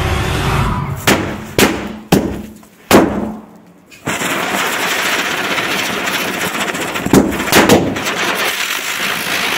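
Small paper-wrapped Diwali firecrackers going off one after another: four sharp bangs in the first three seconds, the last the loudest. After a short lull, a Diwali ground spinner catches about four seconds in with a loud steady hiss of spraying sparks. Three more bangs break through the hiss about three seconds later.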